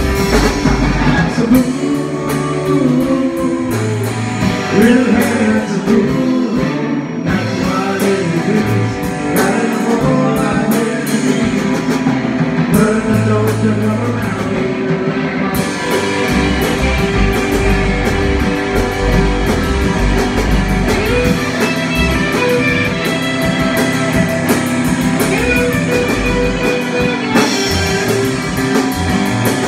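Live rock band playing: electric guitars, bass guitar and drum kit, with a man singing. The cymbals thin out briefly twice and come back in full about halfway through.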